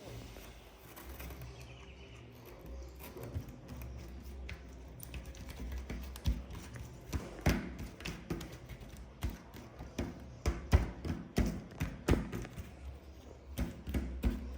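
Slime being poked and squeezed by hand, making irregular sticky clicks and pops that come thicker from about halfway through.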